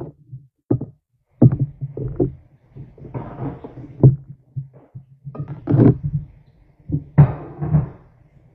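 A string of sharp knocks and clatters, with short rustling scrapes in between, from plastic kitchen containers being handled on a counter.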